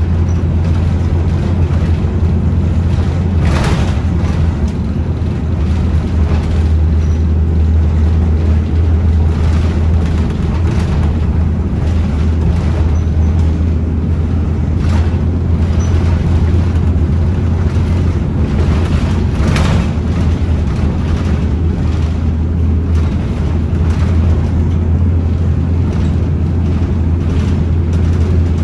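Bredamenarinibus M240 LS city bus heard from inside the passenger cabin while driving: a steady low engine drone with road rumble. Two brief clatters stand out, one about three and a half seconds in and one about twenty seconds in.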